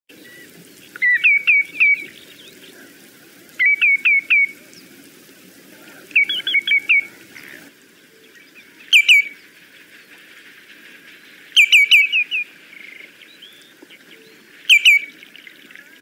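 Common greenshank calling: about six bursts of quick, clear, downslurred notes, mostly in runs of three or four, sometimes just one or two.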